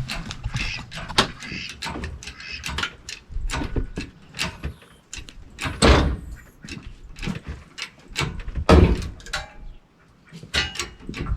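Irregular metal clanks, rattles and knocks from chains and an engine hoist as it takes up the load, with heavier bangs about six and nine seconds in.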